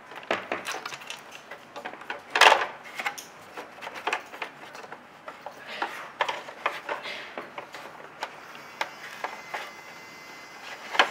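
Plastic parts of a Heng Long M1A2 Abrams RC tank's upper hull and turret ring gear clicking and knocking as they are handled and wires are threaded through, with a louder knock about two and a half seconds in.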